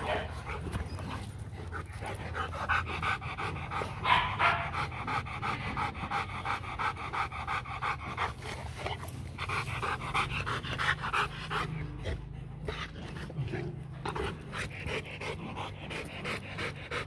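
Rottweiler panting fast and steadily, open-mouthed, a continuous run of quick breaths, still worked up after a bout of barking.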